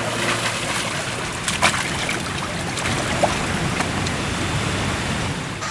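Water rushing steadily through a narrow concrete irrigation channel, an even hiss.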